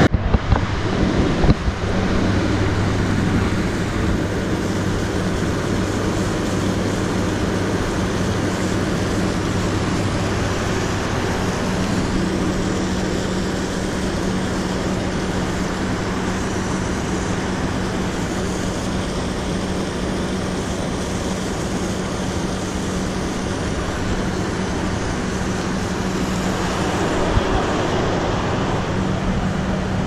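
Steady low hum of a hydroelectric powerhouse's turbine-generators, mixed with the rush of fast-flowing water, with a few knocks in the first couple of seconds.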